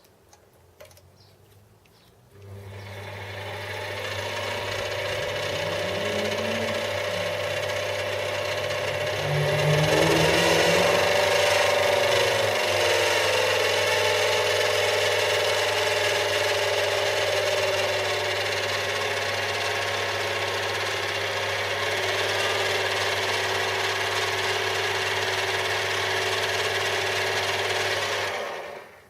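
Chinese mini lathe starting up about two seconds in, its motor whine rising as it comes up to speed. It then runs steadily with the work turning in the freshly oiled fingers of a Gingery steady rest, which are being run in. It is switched off and stops suddenly near the end.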